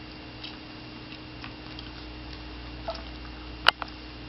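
A baby's mouth sounds while being fed: a few soft clicks, then one sharp smack about three and a half seconds in with a smaller one just after, over a faint steady electrical hum.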